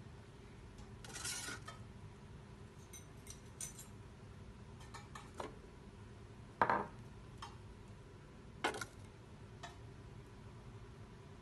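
Steel test weights being set down on, slid across and lifted off the stainless-steel pan of a 5 kg precision balance: a string of separate metallic clinks and knocks, the loudest a little past halfway, during a four-corner eccentricity test.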